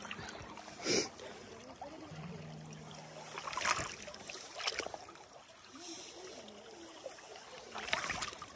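Shallow creek water running and trickling, with several brief splashes and gurgles as a collapsible plastic water bag is held in the current and filled.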